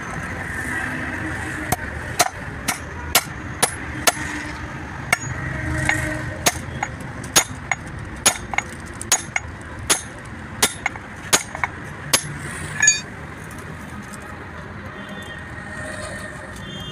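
Hammer blows on a steel drift held against a truck propeller shaft's universal-joint yoke, driving a bearing cup of the new joint cross into place. Sharp, ringing metal strikes come about two a second for some eleven seconds, then stop near the end.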